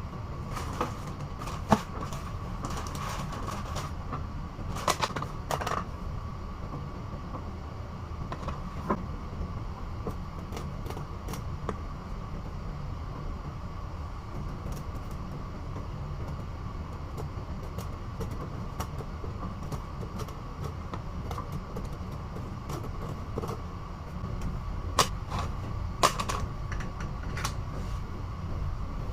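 Steady low machinery drone with a faint steady whine, broken by scattered sharp clicks and knocks, a few of them louder about five seconds in and again near the end.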